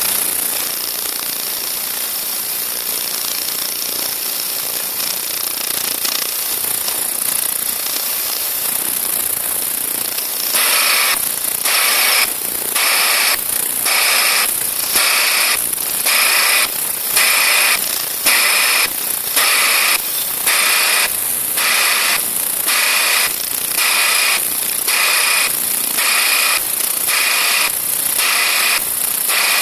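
Vibrating sieving machine with an ultrasonic screen running, giving a steady high hiss. About ten seconds in, the sound begins pulsing on and off a little more than once a second, with a faint high tone in each pulse.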